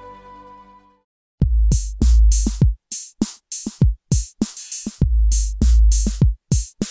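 Background music: a soft, sustained melody fades out about a second in, and after a brief silence a loud electronic drum beat with heavy kick drums and sharp hi-hat and snare hits starts.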